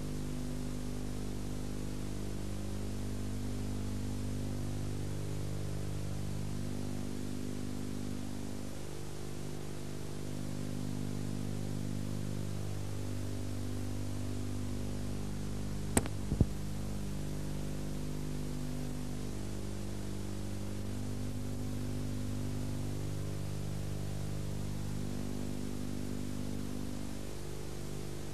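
Steady electrical mains hum with hiss on an old videotape soundtrack, with no game sound coming through. Two sharp clicks a little past halfway.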